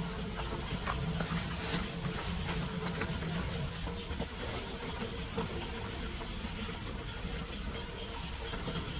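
Rain falling on a flooded street and water running over the pavement toward a leaf-clogged drain grate, with a low steady hum underneath and a few faint clicks.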